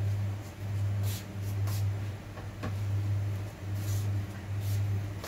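A steady low hum that dips briefly now and then, with a few faint light clicks or taps over it.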